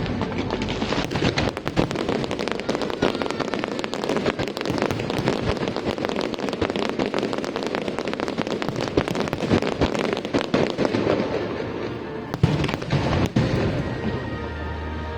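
Fireworks going off in a dense, continuous crackle of rapid pops and bursts, with one sharper bang near the end, over music.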